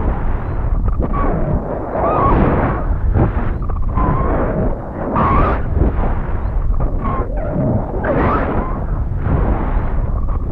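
Wind rushing and buffeting over a high-altitude balloon payload's microphone as it falls under its parachute after the balloon has burst, loud and gusty with a deep rumble and faint wavering whistles now and then.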